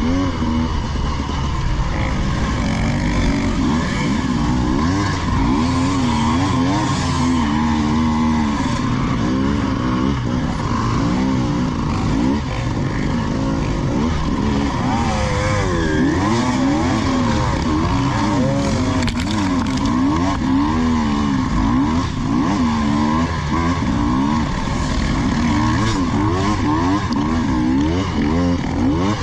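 Off-road vehicle engine running hard, its revs rising and falling every second or two as the throttle is worked, over a constant rushing noise.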